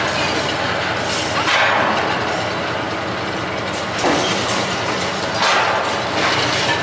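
Demolition crane's diesel engine and winch gear running while it works a wrecking ball, the noise surging about a second and a half in, again around four seconds and near the end.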